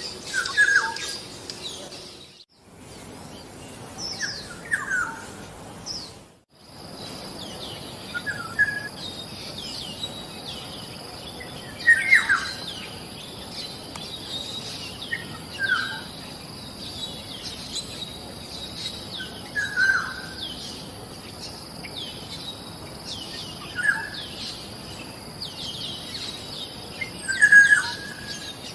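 Birds calling: a short, louder call repeats every few seconds among many quick high chirps, over a steady high whine. The sound cuts out briefly twice in the first seven seconds.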